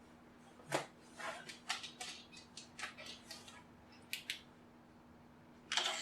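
Irregular series of short clicks and scrapes from the plastic casing of a JBL Flip 2 speaker being handled and worked at during disassembly, with a flurry of strokes about a second in and another cluster near the end.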